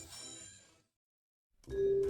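Recorded music fading out, a moment of dead silence, then the instrumental intro of the next song starting with a long held note over a low beat.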